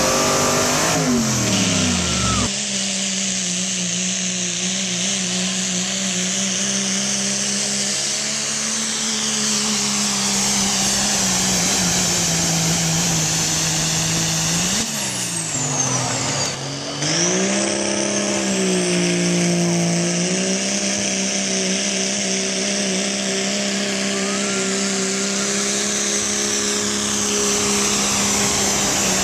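Truck-pull pickup engines running at high, steady revs under full load while dragging a weight-transfer sled. The revs fall away about two seconds in, drop and climb again about halfway through, then hold steady to the end.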